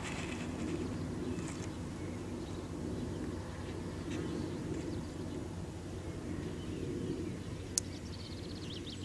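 Outdoor ambience: a steady low rumble with faint, brief bird chirps now and then, a quick run of them near the end, and a single sharp click shortly before.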